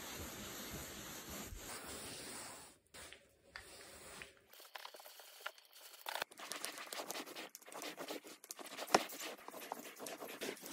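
Microfiber cloth rubbing over fabric couch upholstery: a steady scratchy swishing for the first few seconds, then, after a short pause, a run of short, rough scrubbing strokes.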